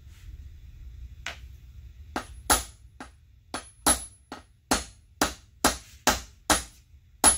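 Hammer blows driving a new wheel bearing the last of the way into a two-piece aluminum go-kart wheel, seating its high side flush. About a dozen sharp metallic strikes at roughly two a second, several with a high ring.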